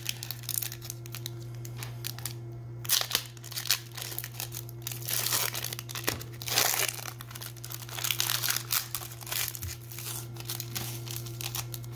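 Foil trading-card pack being torn open and crinkled by hand. The crinkling and tearing comes in irregular bursts, loudest about three seconds in and again between five and seven seconds.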